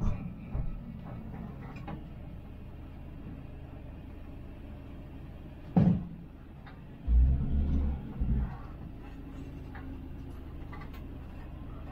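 1966 Dodge A100's slant-six engine running steadily, heard from inside the cab. Dull knocks and thumps break over it: one at the start, a sharp loud one about six seconds in, and a burst of heavy low thumps a second later.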